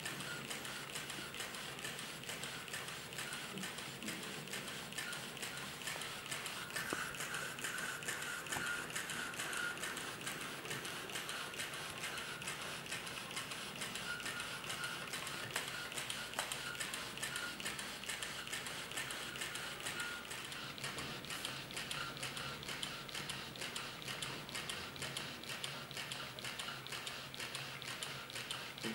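Miniature Astromedia cardboard kit steam engine running steadily, its mechanism making a fast, even clicking as the flywheel turns.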